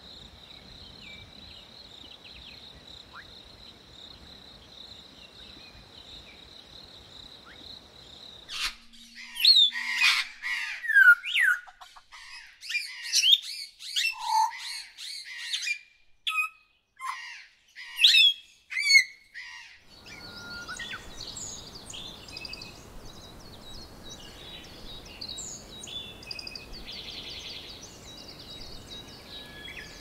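A steady high insect drone over a faint hiss. About nine seconds in, the hiss cuts off and a run of loud bird calls takes over: sharp chirps and quick down-sweeping whistles, in clusters with short gaps. Around twenty seconds the calls stop and fainter mixed chirping with a buzzy insect trill comes in over the hiss.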